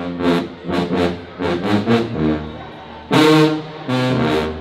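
Marching band brass (sousaphones, trombones and trumpets) playing a stand fanfare in short, punchy chords, with the loudest full-band chord about three seconds in.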